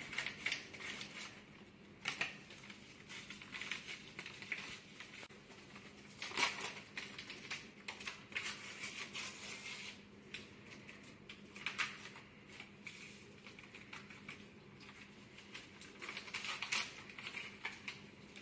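Paper seasoning packets crinkling as they are torn and shaken out over a pot of soup, with a metal spoon scraping and clinking against the pot in between. The sounds come in scattered bursts, the sharpest about two seconds in, around six seconds, near the middle and a couple of seconds before the end.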